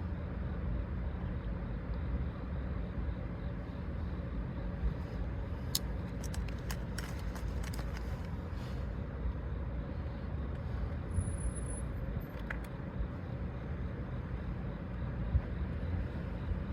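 Steady low vehicle rumble, with a few faint clicks around the middle.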